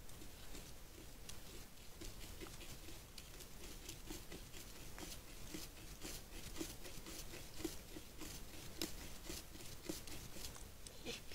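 European badger grooming itself, scratching and nibbling through its fur in a quick even rhythm of about five strokes a second, with small scattered clicks.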